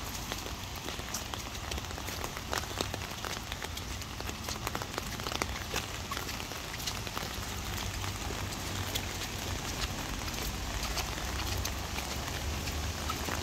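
Steady rain falling on a wet, puddled path and the grass and bushes beside it, with many separate drop ticks over an even hiss and a low rumble underneath.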